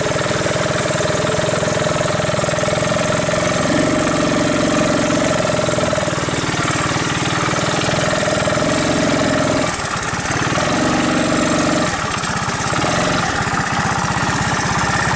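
1981 Honda ATC185S three-wheeler's 180 cc single-cylinder four-stroke engine running under way on a trail ride. It runs steadily, and its note dips briefly about ten seconds in and again around twelve seconds.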